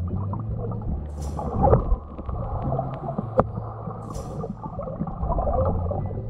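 Muffled underwater sound of shallow sea water heard through a submerged camera: a low rumble and gurgle of moving water, with a short hiss about every three seconds and one sharp click a little past the middle.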